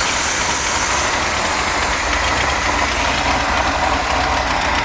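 Moomba boat's inboard engine idling steadily just after starting, with a fast, even ticking running through it from an exhaust leak.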